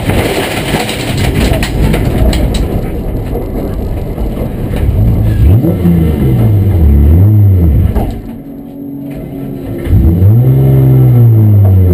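In-car sound of an E36 BMW M3 race car's straight-six engine. At first a rough rumbling with rattling and clattering as the car runs over the grass, then from about halfway the engine revs up and down twice, drops away briefly, and revs up again near the end and holds.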